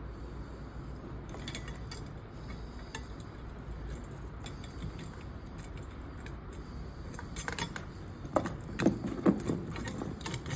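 Metal parts of a lamp arm and its mounting plate clinking and knocking as the arm is fitted and screwed on, scattered light clicks at first, then a run of sharp clinks in the last few seconds.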